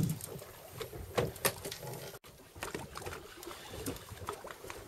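Irregular knocks and clicks of handling aboard a small open fishing boat, over a low hiss of wind and water. The sound drops out for an instant a little past two seconds in.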